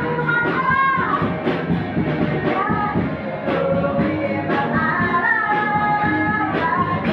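Music: a song with a sung melody over a steady beat.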